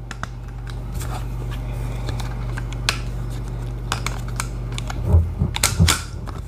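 Scattered metallic clicks and knocks of fingers working the shell latch in the loading port of a Mossberg 500 pump shotgun, trying to free a shell that is stuck in the magazine tube. The louder knocks come in a cluster near the end.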